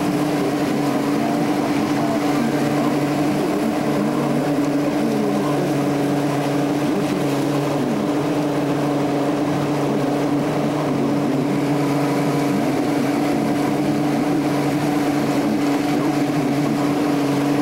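A ski boat's V6 outboard motor running steadily at speed, a constant drone with water rushing and splashing from the wake.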